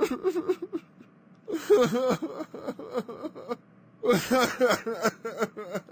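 A person's wordless vocal sounds in three bursts of one to two seconds each, the pitch rising and falling.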